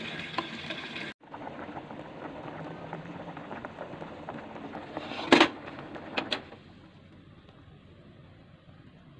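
Cassava pieces boiling hard in water in an aluminium pot, a steady bubbling. About five seconds in there is a knock and then two sharp clicks, and the sound drops to a quieter level.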